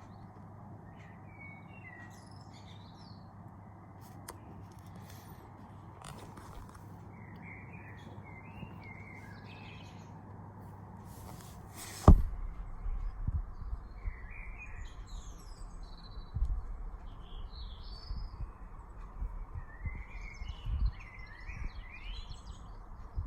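Small birds chirping and tweeting over a steady background hum. About halfway through comes a sharp thump, then irregular low rumbles of wind gusting across the microphone.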